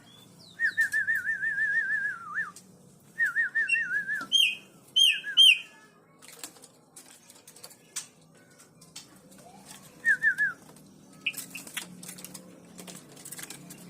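A caged white-rumped shama (murai batu) singing in short bursts. It gives two fast warbling trills in the first four seconds, then a few higher whistled notes, and another short trill about ten seconds in, with faint clicks in between.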